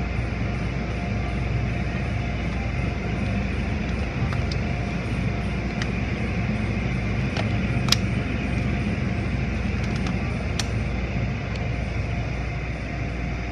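Automatic tunnel car wash machinery running: a steady rumble and hiss of water spray and cloth washers working over a car, with a few sharp clicks, the loudest about eight seconds in.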